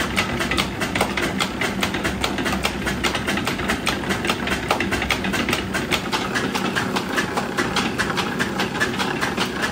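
Belt-driven screw oil expeller pressing mustard seed, running with a fast, even clatter over a steady hum.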